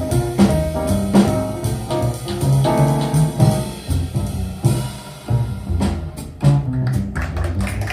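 Recorded jazz music played back over a hi-fi system: drum kit, bass and piano, with a steady beat.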